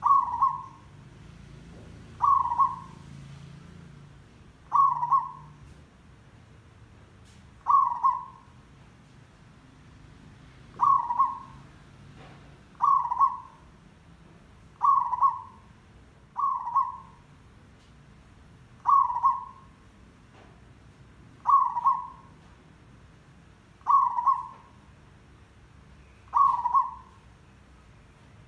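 Zebra dove (merbok/perkutut) calling a short coo about every two to three seconds, a dozen times in a row, each call under a second long.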